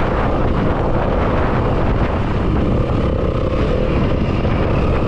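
Yamaha WR250F dirt bike's single-cylinder four-stroke engine running steadily while riding, with wind rumbling on the microphone; a faint steady engine note shows through in the second half.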